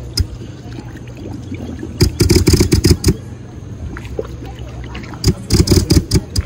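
Steady low hum of a BLUE3 Nemo floating hookah dive system's electric compressor running, broken by three bubbling bursts of about a second each as the diver exhales through the regulator with his head under water.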